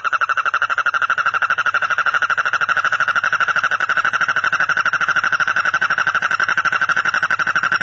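A frog calling in one long, unbroken, rapid trill of about a dozen pulses a second on a steady high pitch.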